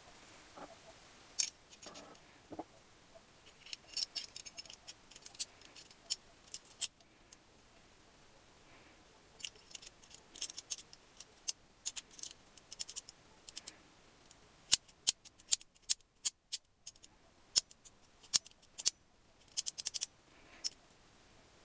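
Small steel gearbox parts of an Adler MB250 clicking and clinking against each other as they are fitted together by hand: irregular sharp metallic clicks, sparse at first and coming thick and fast in the second half.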